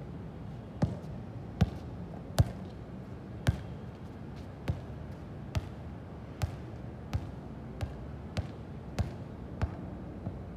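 A series of about a dozen sharp thuds, one every second or so at uneven spacing, the loudest in the first few seconds, over a steady low background noise.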